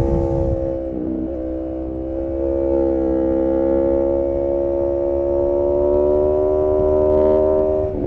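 Aprilia RSV4 Factory's V4 engine running on the move at fairly steady revs. There is a brief break in the note about a second in, then the pitch and loudness rise slowly.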